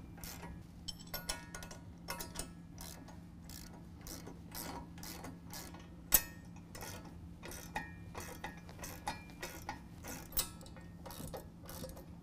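Socket ratchet clicking in short irregular runs as nuts are snugged up on a steel push frame and hitch, with a sharp metal clack about six seconds in. A steady low hum runs underneath.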